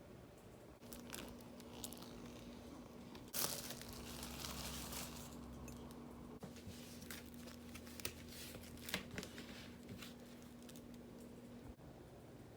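Packaging of a vinyl record being torn open and crinkled by hand: irregular crackling and sharp clicks, loudest in a burst about three seconds in, with a faint steady hum underneath.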